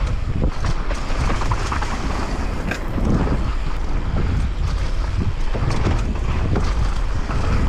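Mountain bike running fast down a dirt trail: wind buffeting the camera microphone, tyres rumbling over the ground, and frequent short knocks and rattles from the bike over bumps.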